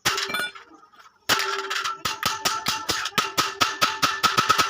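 Electric arc welding crackling and popping: a rapid, irregular run of sharp cracks starting about a second in, after a brief first burst.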